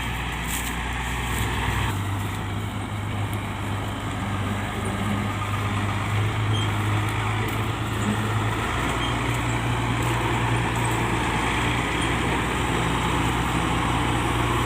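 Malkit combine harvester's diesel engine running steadily, its low note shifting about two seconds in and again a little past halfway.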